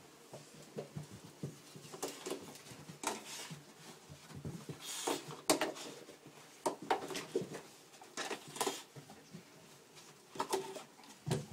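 Dog growling and barking in irregular short bursts at an upright vacuum cleaner that is being pushed toward it switched off, so there is no motor sound. Scattered light knocks and pattering come from the vacuum and the dog's paws on the floor.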